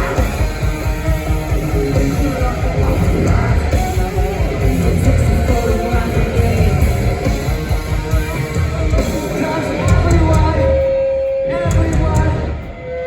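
Live rock band playing a loud, distorted noise jam: electric guitars over heavy bass and drums. Near the end a single steady high note is held, and the music dips briefly just before it closes.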